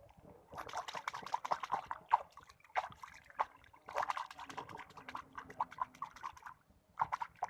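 Water sloshing and splashing in short, irregular bursts, with a brief lull shortly before the end.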